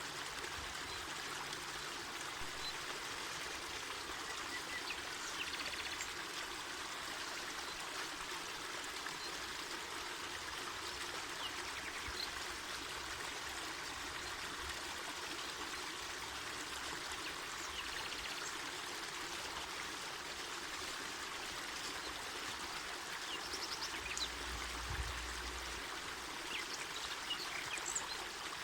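A mountain forest river running over rocks: steady rushing and burbling water. A few faint, brief high chirps, likely birds, come through the water sound.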